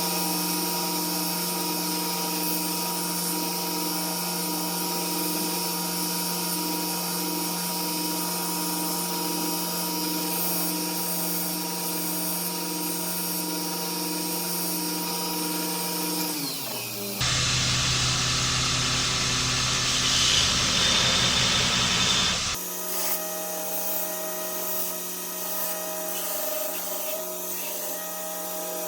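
Electric power tool motor running steadily in a knifemaking shop, with a noisier stretch of grinding or cutting about 17 seconds in, then the motor running steadily again at a slightly different pitch.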